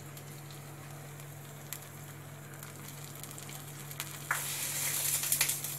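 Hot ghee and fried cashews and almonds sizzling as they are poured from a small pan onto rice kheer, with a few faint clicks over a steady low hum. The hiss grows louder about two-thirds of the way in.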